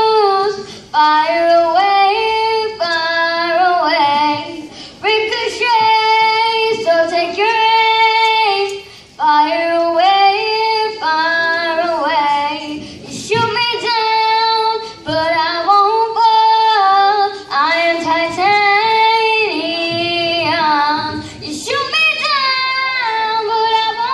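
A young girl singing solo into a microphone, in phrases of long held notes with short pauses for breath between them.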